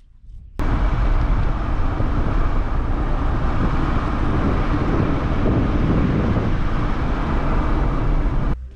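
Loud, steady rushing road and wind noise of a moving vehicle. It starts abruptly about half a second in and cuts off suddenly near the end.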